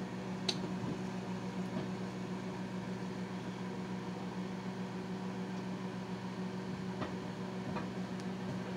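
Microwave oven running with a steady electrical hum, with a few faint pops about half a second in and again near the end.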